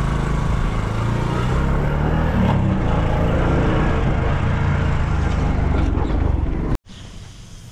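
A motor vehicle engine running with a steady low rumble, cut off abruptly near the end.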